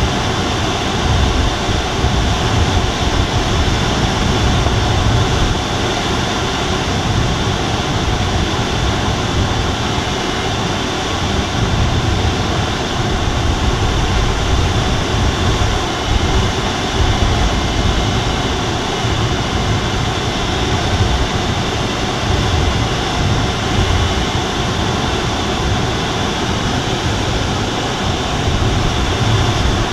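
Steady rush of airflow over the canopy inside the cockpit of an Alisport Silent-in motorglider in gliding flight, its engine stowed, with an uneven low rumble underneath.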